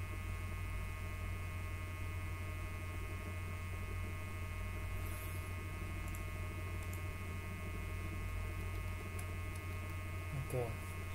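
Steady electrical mains hum with a buzzing stack of higher overtones, and a few faint clicks.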